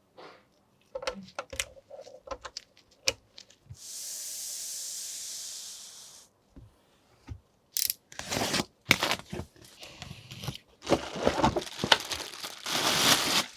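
Hands at work on a PC build: a few light clicks and knocks, a steady hiss for about two seconds, then a run of crinkling, tearing noises.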